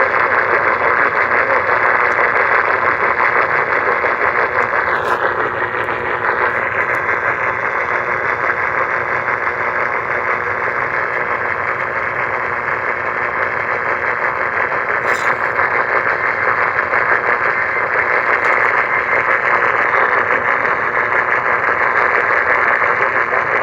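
Steady radio static hiss from a receiver tuned to a NOAA Weather Radio channel, with no voice on the air.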